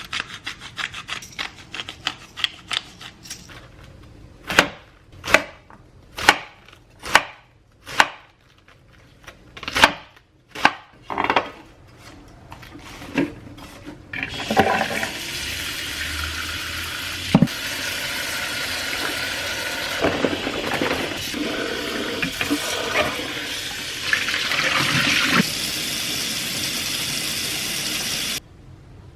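Kitchen knife chopping on a cutting board, first in quick strokes, then in single sharp chops a little under a second apart. From about halfway, a steady rush of running tap water takes over and stops sharply near the end.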